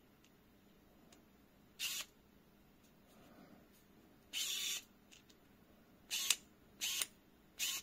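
Precision screwdriver working the tiny decorative screws of a metal fidget button: five short mechanical bursts, the last three coming close together near the end. The screws turn out to be decorative only, not real fasteners.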